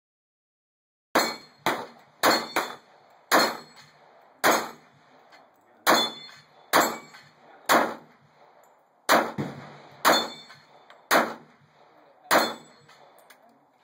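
Glock 21 .45 ACP pistol fired at steel targets: about thirteen single shots at an uneven pace of roughly one a second, starting about a second in, each followed by a brief metallic ring of the steel plates.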